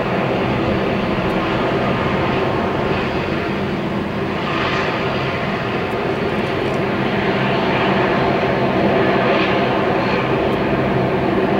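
Airbus A320 airliner's twin jet engines running at the start of its takeoff roll: a steady noise with a low hum under it, growing slightly louder in the second half.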